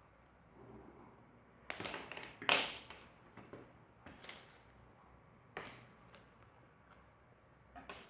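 Scattered handling noises from a pair of leather chainsaw gloves being moved about: soft rustles and light knocks, loudest in a cluster about two to three seconds in, then a few fainter ones.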